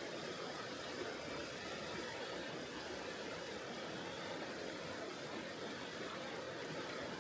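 Steady rushing of a mountain river flowing over rocks, an even wash of water noise with no breaks.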